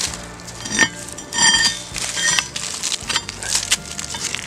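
A few short crunches in dry leaf litter, each with a light ringing clink, like old iron rods being knocked or stepped near.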